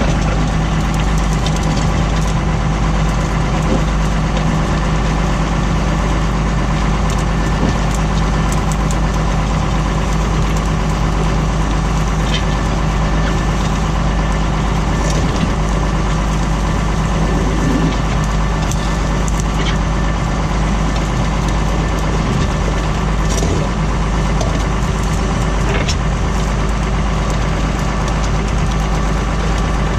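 Tractor engine running steadily, pulling a plough, with a few faint light clicks on top.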